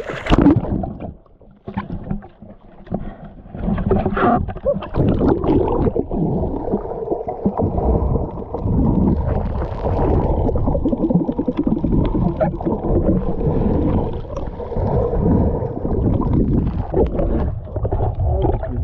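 Water sloshing and gurgling around an action camera held at and under the surface while snorkelling, with a splash at the start. For most of it the sound is muffled, as heard through the submerged camera.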